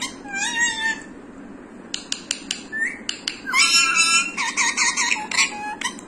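Indian ringneck parakeet calling in quick bursts of high, wavering notes, with a quieter gap holding a few sharp clicks about two seconds in before the chatter picks up again.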